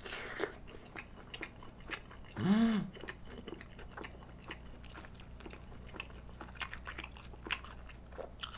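Close-miked biting and chewing of a sauced fried chicken drumstick: a run of small crunches and wet mouth clicks. About two and a half seconds in there is a short hum from the eater that rises and falls in pitch.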